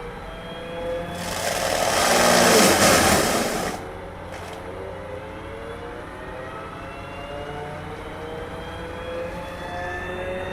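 Excavator's diesel engine running under load with its forestry mulcher attachment, the engine pitch slowly rising and falling. About a second in, a loud rushing noise lasting roughly two and a half seconds rises over the engine, then dies away.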